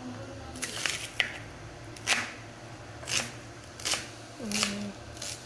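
Kitchen knife chopping red onion on a cutting board, in separate strikes about once a second.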